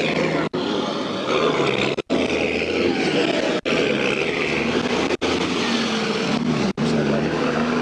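Vehicle engines running, a steady hum whose pitch drifts slowly, with the sound briefly cutting out about every second and a half.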